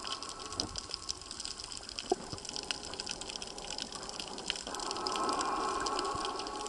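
Underwater sound of a snorkelling dive in the sea: a continuous crackle of small clicks, and a rushing water-and-bubble noise that swells about five seconds in as the swimmer dives.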